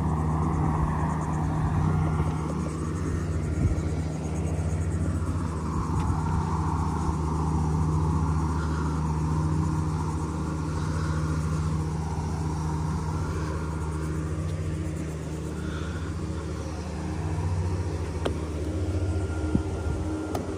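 A steady low mechanical hum with a softer rush above it that swells and fades.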